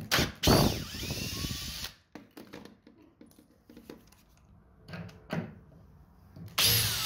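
Cordless drill-driver backing screws out of a door hinge leaf in a wooden door frame. The motor runs for about a second and a half and stops, there are a couple of light knocks, and a second short burst comes near the end.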